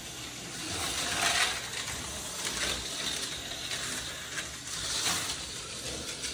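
TYCO HO-scale slot cars running laps on the plastic track: small electric motors buzzing and rattling along the slots, getting louder twice as cars come by.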